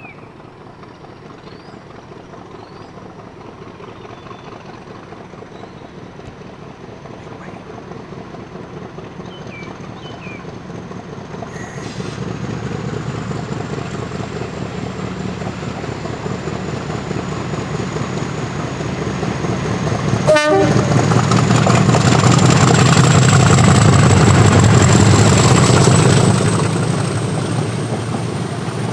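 A Class 50 diesel locomotive with an English Electric 16CSVT V16 engine approaches under power and passes close by. Its engine grows steadily louder to a peak about three-quarters of the way through, then drops away near the end. A thin high whine runs over the engine throughout and rises slowly in pitch, with a sharp crack about twenty seconds in.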